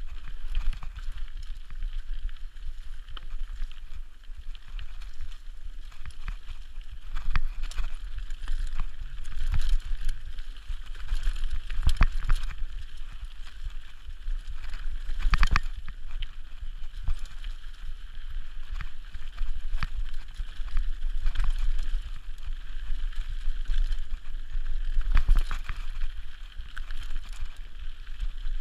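Mountain bike riding fast down a dirt trail: a steady rumble of wind on the microphone and tyres on dirt, with rattles and several sharp knocks as the bike hits bumps.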